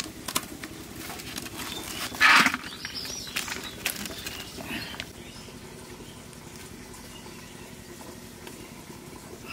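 Stiff palm leaves rustling and crackling as a steamed palm-leaf bundle is handled and opened, with steamed rice pattering onto a steel plate. One louder short burst comes about two seconds in, and the sound settles to a quieter steady background from about five seconds.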